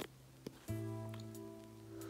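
Background music: a held chord fading away, then a new chord struck a little under a second in and slowly dying down.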